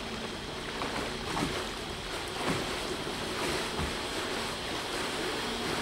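Tour boat moving along a river: a steady wash of water with a low, even motor hum.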